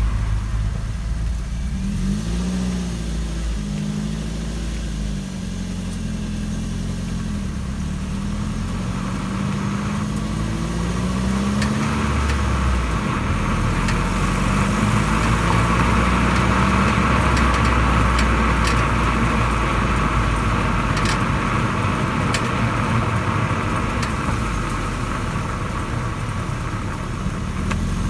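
Ford Focus Mk2.5 under way: engine and road noise, with a few sharp clicks from the rear suspension about two-thirds of the way through. The owner suspects the rear coil spring, its rubber protector shifted so that metal touches metal.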